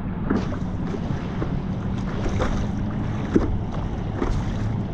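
Wind buffeting the microphone over choppy water, with small waves splashing and slapping irregularly against a stand-up paddleboard. A steady low hum runs underneath.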